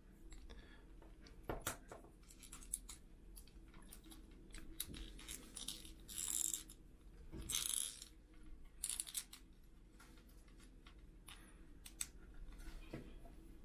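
Faint handling noise of a small 3D-printed plastic eye mechanism as a thin pin is pushed into it by hand: scattered small clicks and taps, with two brief scraping rustles about six and seven and a half seconds in.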